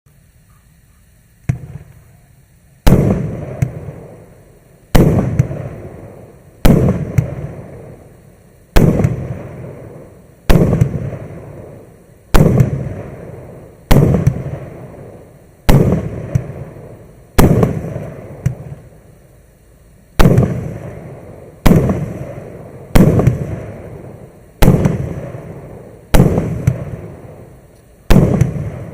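Maxsem MC117 firework going off shot after shot: after a small pop about a second and a half in, a sharp bang comes roughly every one and a half to two seconds, about fifteen in all, each trailing off over a second or so.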